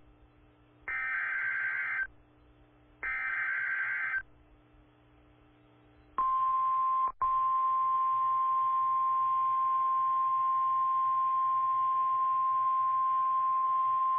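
Emergency Alert System weather-radio signal. Two short data bursts of the SAME alert header, each about a second long, are followed after a two-second pause by the steady 1050 Hz NOAA Weather Radio warning alarm tone, which briefly drops out about a second after it starts. The signal announces a severe thunderstorm warning.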